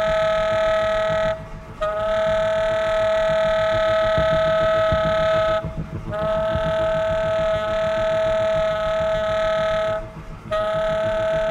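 Tenor saxophone holding long high notes, three of about four seconds each, with short breaks between them, over a low bass line.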